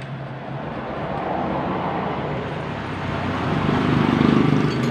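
A motor vehicle's engine running, steady at first and growing louder about four seconds in.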